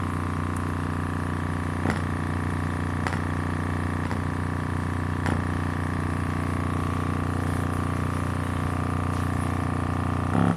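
A 6.5-inch Aiwa midbass driver playing in free air, driven hard with a 30 Hz tone. It gives a steady, buzzy tone rich in overtones, with a few brief clicks along the way. It cuts off abruptly just before the end.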